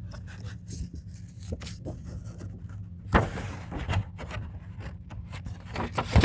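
Pages of a small children's book being handled and turned: light paper rustles and taps, with a louder page rustle about three seconds in and another just before the end, over a steady low hum.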